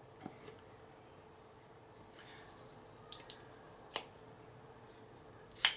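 Hard clicks of a folding knife being handled: two faint ticks, then a few crisper clicks, and near the end one louder, sharper snap.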